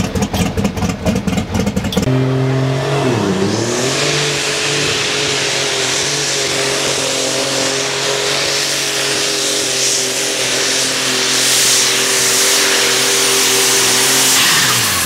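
Pulling tractor's engine, first running rough and pulsing, then switching abruptly to a steady high-revving run under load with a steady hiss above it. The pitch dips briefly and recovers about a second after the switch, then falls away near the end as the engine winds down.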